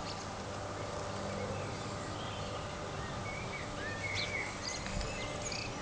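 Songbirds chirping and calling here and there over a steady low hum of outdoor background noise, ending in a sharp click.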